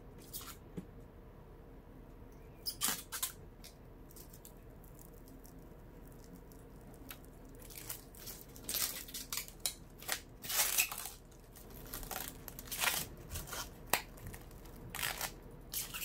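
Protective plastic film being peeled off a glass PC-case side panel, crackling and crinkling in irregular bursts. The crackles are sparse at first and grow denser and louder about halfway through.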